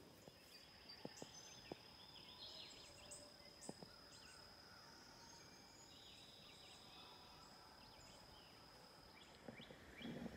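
Near silence: faint outdoor ambience with a steady thin high-pitched drone, scattered short distant bird chirps and a few soft clicks.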